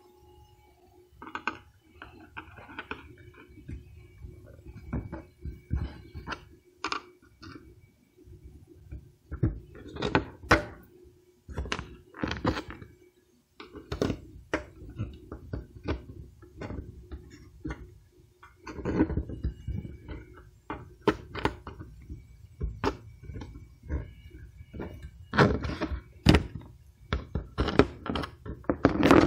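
Irregular knocks, taps and clicks from hands working the truck's plastic front-end trim and push-pin clips, some louder clusters of clunks, over a faint steady hum.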